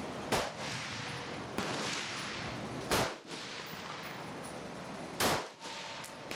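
AR-15 rifle firing three loud single shots, roughly two and a half seconds apart, with a fainter shot from elsewhere on the range about a second and a half in.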